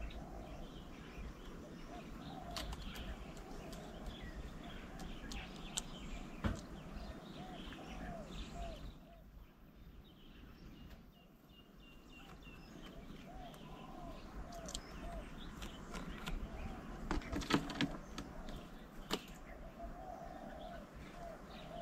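Birds calling: runs of short arching low notes repeated over and over, with higher chirps and scattered sharp ticks, busiest in a cluster of clicks late on.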